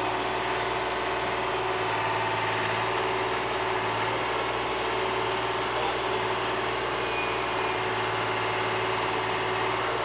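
Yanmar YB251 mini excavator's diesel engine running steadily while the boom and bucket dig into gravel, with an even, unbroken engine note.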